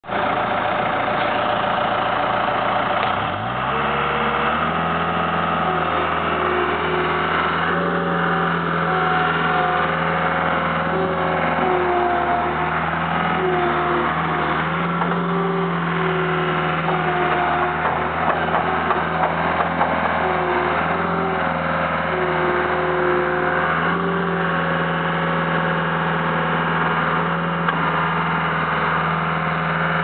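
The diesel engine of a 2004 Caterpillar 242 skid steer loader running. About three seconds in it is throttled up from a low idle to a steady higher speed, and a whine that shifts in pitch sits over the engine note as the loader drives and works its bucket.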